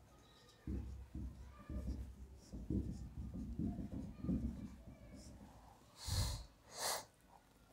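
Whiteboard marker writing on a whiteboard, its strokes making soft low knocks against the board, then two loud breaths through the nose near the end.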